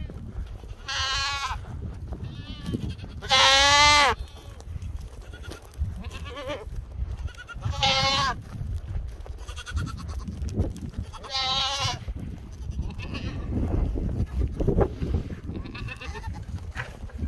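Goats bleating at feeding time, calling for the feed they expect: about four loud bleats several seconds apart with fainter ones between. The loudest, about three seconds in, drops in pitch at its end. A steady low rumble runs underneath.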